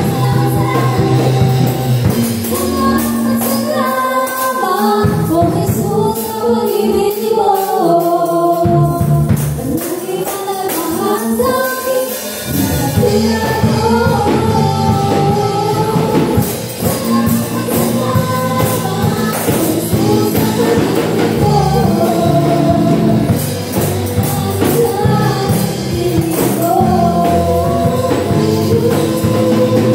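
Live worship song: a woman leads the singing with backing singers over a band with drums and keyboard, and tambourines are shaken along. The low end of the band drops out twice in the first half, and the full band comes back in about twelve seconds in.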